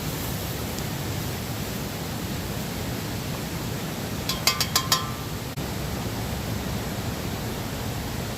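Steady rushing noise, with a quick run of about five sharp, ringing metallic clinks a little past halfway through.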